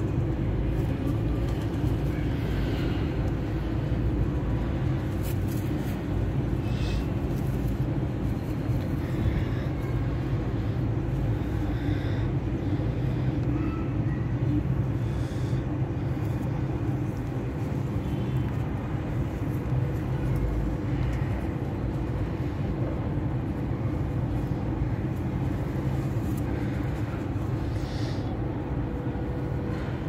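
Steady low background rumble with a faint even hum, unchanging throughout, with a few faint short higher sounds scattered through it.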